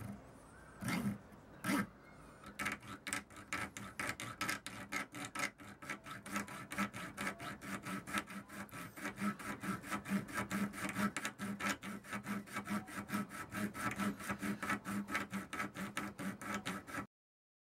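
A thin saw blade hand-sawing through the plastic fan blades of a protein-skimmer pump's needle-wheel impeller, in rapid even strokes, several a second. There are a couple of knocks about a second in, and the sawing stops abruptly shortly before the end.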